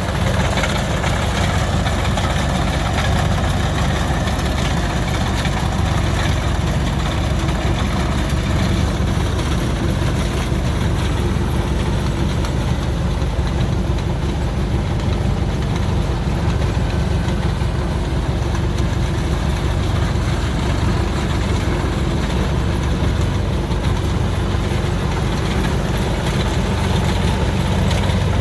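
Kubota DC70 combine harvester's diesel engine running steadily: a constant low drone with an even mechanical rush above it, unchanging throughout.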